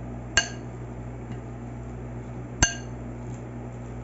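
A utensil strikes a mixing bowl twice while the rangoon filling is seasoned and mixed, each strike a sharp clink that rings briefly. The second clink is the louder. A steady low hum runs underneath.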